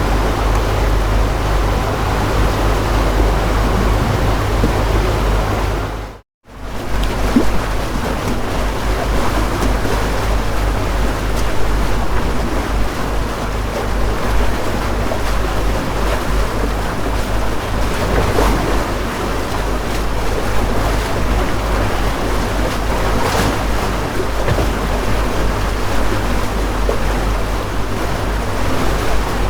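Houseboat's motor running steadily with a low hum, under the splashing and sloshing of lake water against the hull as it moves. The sound cuts out abruptly for a moment about six seconds in, then resumes.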